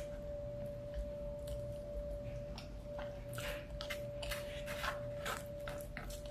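A plastic fork scraping and clicking against a disposable bowl while scooping rice, with chewing, in a cluster of short scrapes about halfway through. A steady high hum runs underneath.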